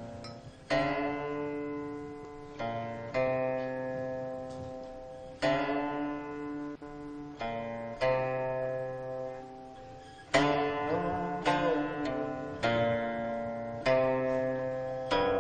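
Slow instrumental music on a plucked string instrument: single notes and chords are struck about every second or two and left to ring and die away, with wavering, bent notes a little past the middle.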